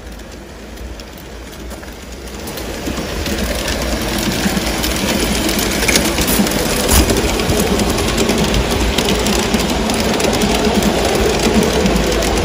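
G scale model freight train running on outdoor garden track with its onboard sound turned off, so only the mechanical noise is heard: wheels rolling and clicking over the rail joints and switches, with motor and gear noise. It gets louder a few seconds in as the train comes close by.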